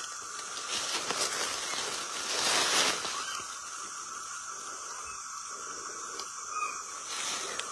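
Outdoor ambience among trees and thickets: a steady hiss with rustling, swelling into a louder rustle about two and a half seconds in.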